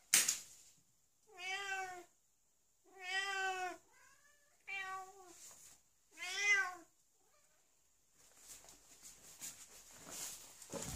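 A domestic cat meowing four times, each meow about half a second long with a rising-then-falling pitch, begging for a churu treat. A short sharp click comes right at the start, and faint rustling and movement noise builds near the end.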